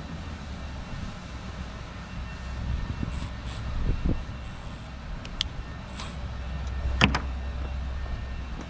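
Cordless drill-driver run in a few short bursts, each with a faint high whine, and tools clicking on the metal work table, with the sharpest click about seven seconds in. A steady low rumble runs underneath.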